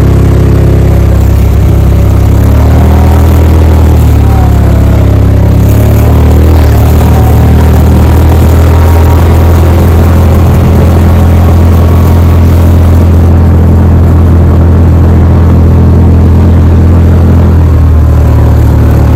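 Side-by-side UTV engine running at a steady speed while driving along a rough dirt track, heard loud from inside the vehicle: a constant low drone with only slight rises and falls in pitch.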